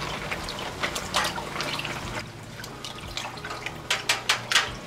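Dye bath sloshing and splashing in a stainless steel pan as a skein of wool yarn is pushed under by a gloved hand, a run of louder splashes near the end, over a steady low hum.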